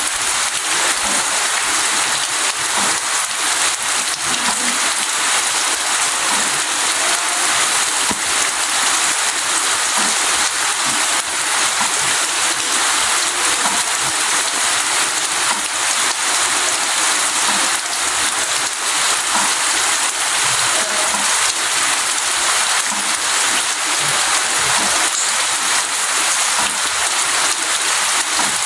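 Steady rain falling, a dense even patter of drops on surfaces.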